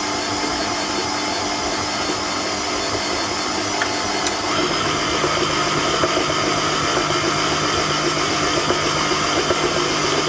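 Electric stand mixer running steadily, its flat beater churning thick cream cheese batter in a stainless steel bowl. About halfway through, the motor's whine changes to a different steady pitch.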